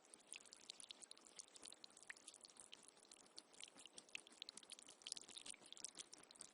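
Faint trickling water: a dense, irregular run of small drips and splashes over a light hiss.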